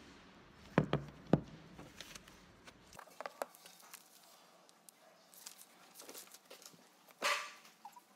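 Close handling noises from a phone and papers: three sharp knocks about a second in, scattered light clicks, then a short rustle near the end.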